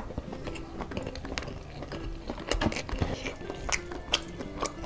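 Close-up eating sounds of spit-roasted chicken and rice eaten by hand: chewing, wet mouth clicks and smacks, with a few sharper crunchy bites. Background music plays underneath.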